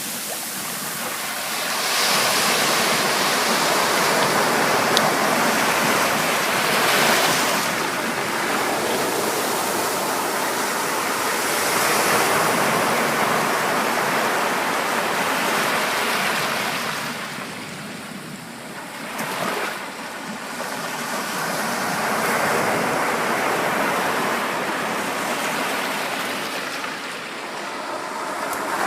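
Ocean surf washing onto a beach: a continuous rush of breaking waves that swells and eases, falling away briefly about two-thirds of the way through and again near the end.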